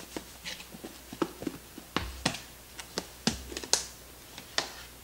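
Irregular clicks and knocks of a plastic food container being handled and its snap-on lid pulled off, the container holding flour-coated chicken pieces. The sharpest snaps come about two to four seconds in.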